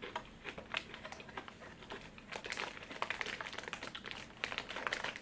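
Plastic snack bag crinkling in the hands, an irregular run of crackles and rustles as the bag of biscuits is folded and pushed back into its small cardboard box.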